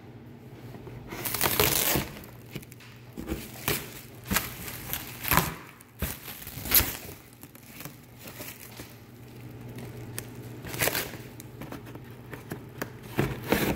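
Clear plastic wrapping on a cardboard shipping box crinkling and rustling as the box is handled and pulled at, in irregular bursts.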